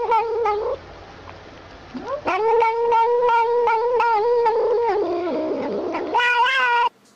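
Tabby cat yowling in long, drawn-out, steady calls while it suckles from a small nursing bottle, with faint regular clicks running through. The calls come three times; the middle one lasts about four seconds, and the last is short and cuts off abruptly near the end.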